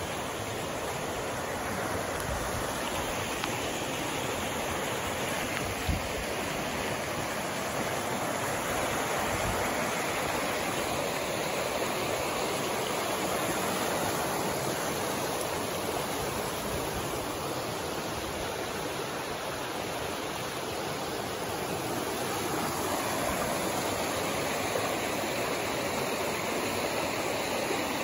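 Small rocky mountain creek rushing and splashing over stones in a steady, unbroken wash of water noise, with a few brief low thumps early on.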